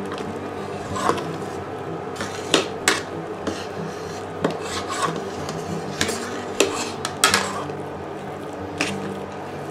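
Metal spoon stirring ground corn into hot water in a stainless steel pot, scraping and clinking against the pot at irregular intervals, over a steady low hum.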